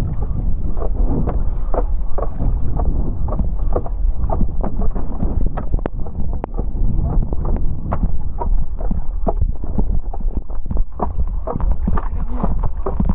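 Strong wind buffeting the microphone, with rapid, irregular water splashes and slaps from ocean chop as a hydrofoil board rides downwind.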